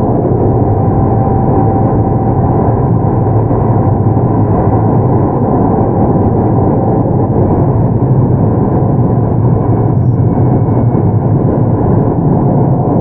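Steady running noise inside a Keio 8000 series electric train travelling between stations: a constant rumble of wheels on the rails with a faint steady hum, holding the same level and pitch throughout.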